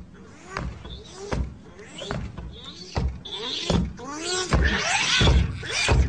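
Comic footsteps of a walking fridge: heavy thuds about every three-quarters of a second, each with a short squeaky creak, growing louder as it comes closer.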